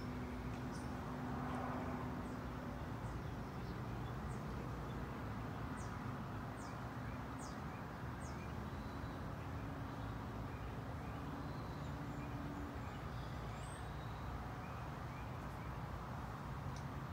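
Outdoor ambience: a steady low rumble with small birds giving short, high, downward chirps every second or so.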